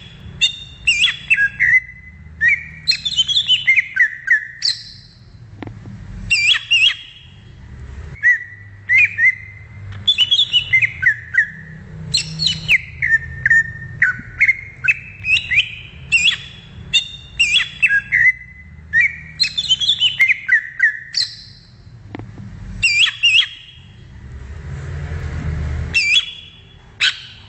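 Green leafbird (cucak ijo) singing: quick phrases of sweet whistled and warbled notes, repeated every second or two, over a low steady hum. A hiss swells and fades about 24 seconds in.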